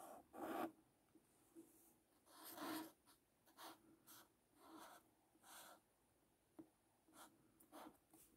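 Felt-tip marker writing on a paper card: a faint series of short, separate pen strokes as letters are drawn.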